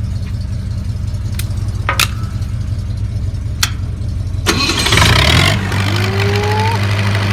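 An engine idles steadily under a few sharp clicks, then about halfway through a second engine, the Lincoln Blackface 200 engine-driven welder's, is cranked and catches with a loud burst, settling into a steady run.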